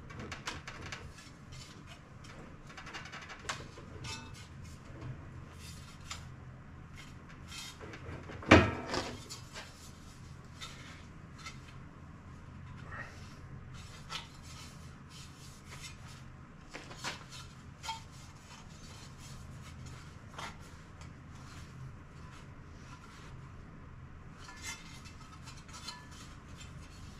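Steel sheet being worked back and forth through an English wheel to stretch a curve into it: scattered light metallic clicks and knocks, with one loud metal clank that rings briefly about eight and a half seconds in.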